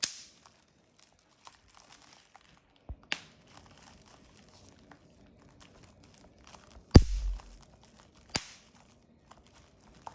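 Bubble wrap crinkling under a Moluccan cockatoo's beak, with a handful of sharp pops: one at the start, two close together around three seconds in, the loudest about seven seconds in, and one more soon after.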